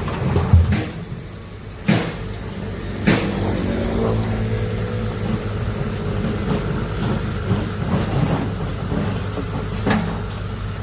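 Heavy excavator's diesel engine running steadily, with sharp knocks about two, three and ten seconds in.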